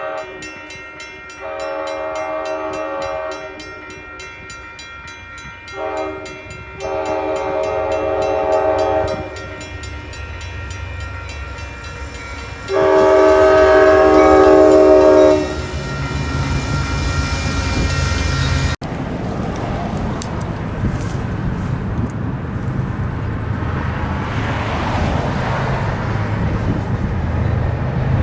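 Freight diesel locomotive's multi-note horn sounding several blasts, the last one loudest and held about two and a half seconds. After the horn the locomotive's diesel engine rumbles and the train rolls by with steady wheel-on-rail noise.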